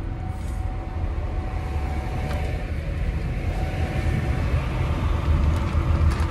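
Steady low vehicle rumble heard from inside a car's cabin, with a faint steady hum over it.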